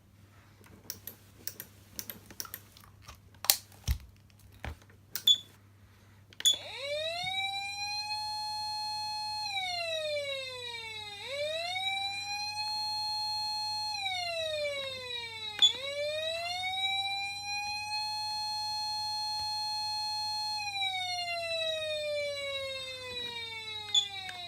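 Patlite SAP500BZ electronic siren amplifier sounding a wail: the tone sweeps up, holds high, then falls, three times over, the last one winding slowly down. A run of sharp switch clicks comes first, and the siren starts about six seconds in.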